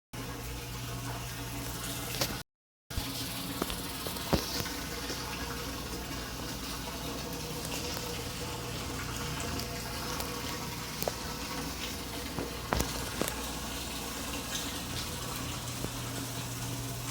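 Clothes washing machine running with water pouring and splashing inside it, over a steady low hum, with a few sharp clicks scattered through. The sound cuts out completely for about half a second around two and a half seconds in.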